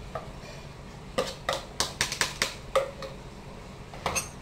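Metal spoon tapping and scraping against the rim of a small bowl to knock out blended lemongrass paste: a quick run of sharp clinks, then one more clink near the end.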